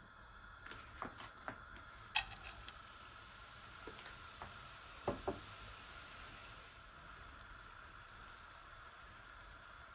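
Sugar and jaggery heating in a nonstick pan for caramel, sizzling softly, with a handful of sharp ticks in the first three seconds and two more about five seconds in as crumbled jaggery drops into the pan. The sizzle fades after about seven seconds.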